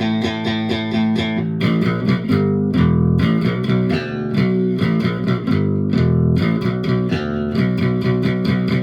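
G&L SB-2 Tribute electric bass, picked on its bridge pickup alone through a Fender Rumble 25 bass amp, playing a fast run of sharp, bright note attacks.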